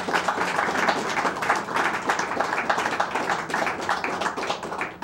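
Audience applauding with many hands clapping, dying away at the very end.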